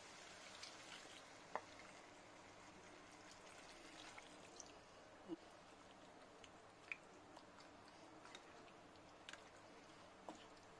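Faint sounds of cooking in a kadai: water poured over masala-coated chicken, then a few sparse, sharp clicks of a spatula against the pan as it is stirred, over a low steady hiss.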